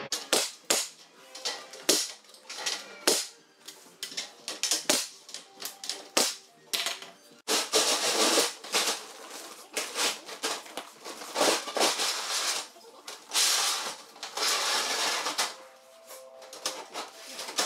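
Sharp clicks and knocks in quick succession, then longer bursts of rattling and scraping as corrugated galvanized sheet metal wall panels are handled and slid into a metal J-channel.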